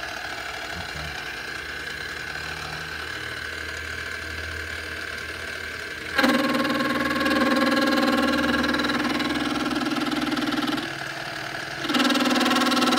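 Small benchtop milling machine running a dovetail cutter through a metal block, a steady machine drone with a hum. About six seconds in it suddenly gets much louder with a strong steady tone, dips back for a second near the end, then comes up loud again.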